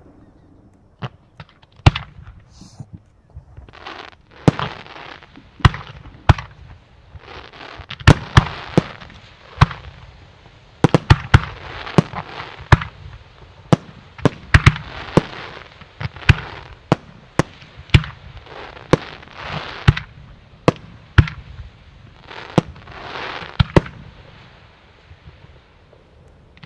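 Professional aerial fireworks display: about two dozen sharp bangs of shells launching and bursting, sparse at first and then coming thick and fast. A rough hissing, crackling wash fills the gaps between the bangs.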